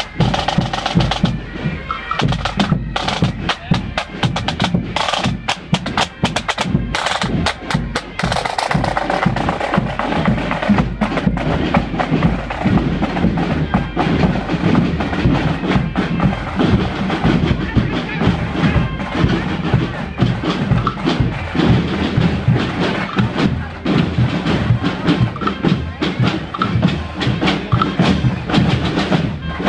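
Marching drum corps playing snare drums and tenor drums over a bass drum, with crowd voices around. The drum strokes stand out most clearly in the first eight seconds or so, then blend more with the crowd.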